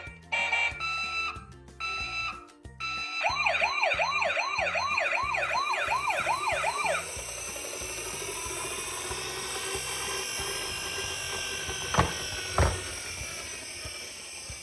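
A toy vehicle siren sweeping rapidly up and down, about three sweeps a second for roughly four seconds, after a few seconds of background music; it then fades into a hiss, with two sharp knocks near the end.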